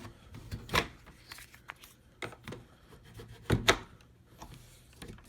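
Handling sounds of a door lock installation jig being set against a door: scattered knocks, clicks and rubs, the loudest a quick double knock about three and a half seconds in.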